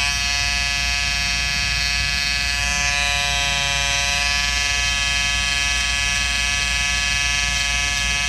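Wahl Peanut electric shaver running with a steady buzz, its blade pressed against machine-embroidery stitches on a shirt to cut them out.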